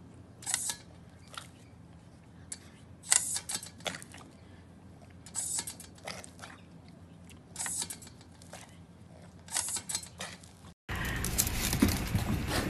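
Short hissing spurts of water from a small hose-fed ground sprinkler, about six of them spread over ten seconds. Near the end it cuts to louder, steady indoor room noise.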